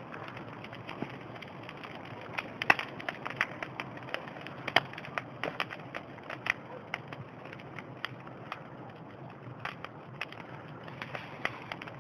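Campfire crackling as it catches: irregular sharp pops and snaps, a few louder ones, over a steady low hiss.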